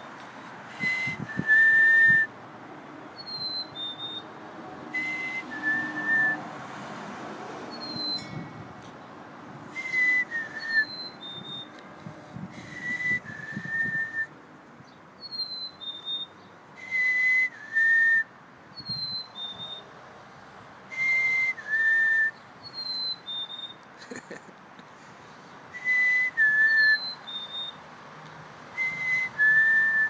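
A person whistling the two-note falling 'fee-bee' and a black-capped chickadee answering with its own fee-bee song, higher and fainter, the two taking turns back and forth.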